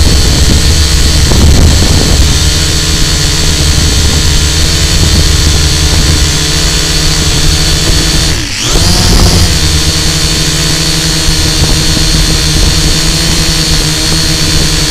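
Multirotor drone's electric motors and propellers heard from the onboard camera: a loud, steady whine made of several tones. About eight and a half seconds in, the pitch drops briefly and swings back up as the motors are throttled down and up again.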